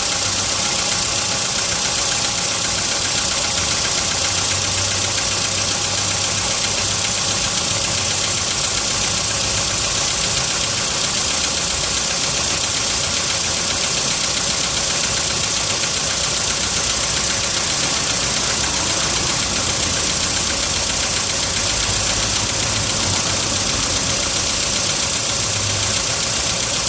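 Volkswagen Polo sedan engine idling cold with a steady knock, the cold-start engine knock it is filmed for.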